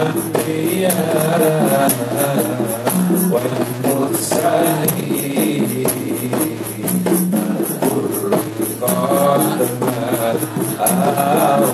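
Devotional shalawat singing in praise of the Prophet, carried by several voices, over a steady quick beat of frame drums and jingles.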